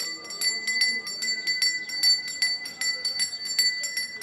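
Brass hand bell (puja ghanti) rung rapidly and continuously, about six strokes a second, over a steady high ringing tone.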